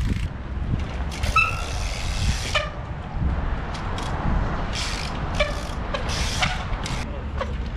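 Trials bike hopping on a concrete ledge: several short sharp knocks of tyres and rims landing, over a steady low rumble, with a brief high-pitched squeal about a second and a half in.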